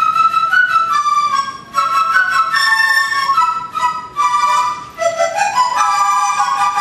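Three dizi (Chinese bamboo flutes) playing together, several notes sounding at once, with quick note changes and a rising run about five seconds in.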